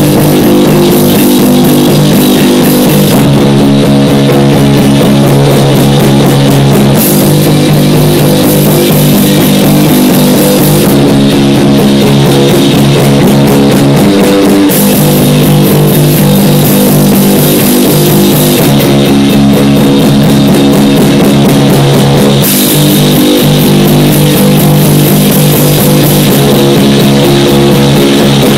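Loud rock music played from a band's demo cassette: guitar chords over a drum kit. The cymbals drop out and come back every few seconds.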